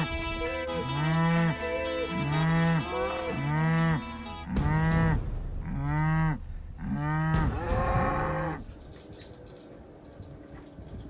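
Cattle mooing: a string of short moos, roughly one a second, that stop about eight and a half seconds in. Steady background music fades out partway through.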